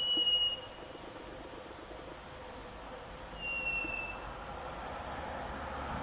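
A clear whistled call: a single note, falling slightly in pitch and lasting about half a second, given twice about three and a half seconds apart. The uploader wonders whether it is a bird.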